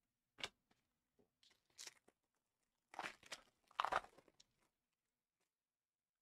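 Foil trading-card pack wrapper being torn open, crinkling in a few short faint bursts, the loudest about four seconds in, after a sharp click about half a second in.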